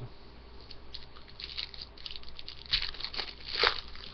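Foil wrapper of a hockey card pack crinkling as it is handled and opened, with two louder crackles near the end.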